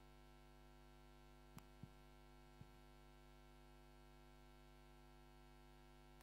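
Near silence: a steady electrical mains hum, with three faint clicks between about one and a half and two and a half seconds in.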